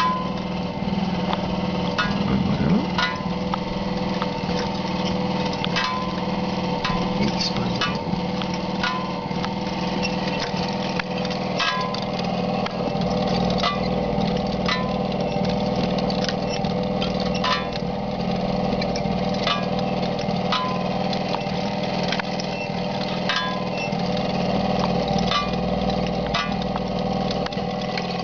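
Small solar-powered electric motor driving a bucket-chain water lift, running with a steady hum. A sharp click comes about once a second as the chain goes round.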